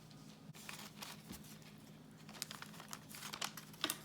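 Faint crinkling and crackling of plastic or paper being handled: scattered small crackles that grow busier toward the end.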